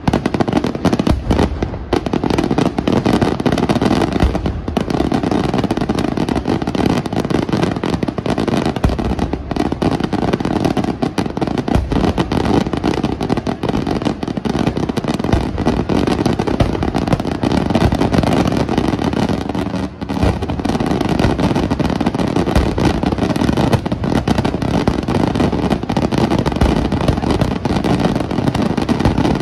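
Aerial fireworks shells going off in a rapid, near-continuous barrage of bangs and crackles, with a brief dip about two-thirds of the way through.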